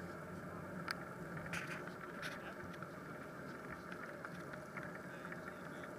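Steady riding noise of a bicycle on a wet asphalt cycle path: tyres running on the wet surface. A few sharp clicks come in the first half.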